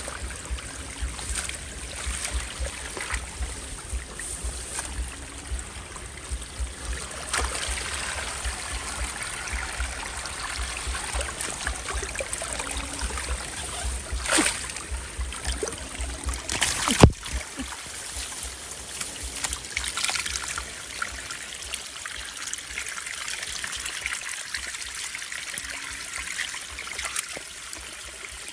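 Water trickling and running steadily, with scattered small splashes and knocks. A sharp knock about 17 seconds in is the loudest sound, with a smaller one a little before it.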